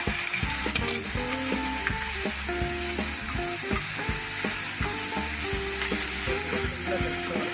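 Ginger-garlic paste, onions and mint sizzling in hot oil in a pressure cooker, with a continuous frying hiss. A spoon stirs them, knocking and scraping against the metal pot many times.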